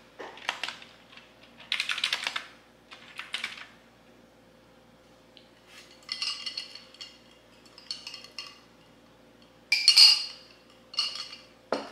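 Computer keyboard typing in short bursts, then ice clinking against a glass jar as a straw stirs the iced drink, loudest about ten seconds in.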